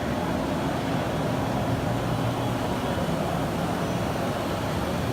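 Steady, even background din of a large machine-tool exhibition hall, with no distinct events.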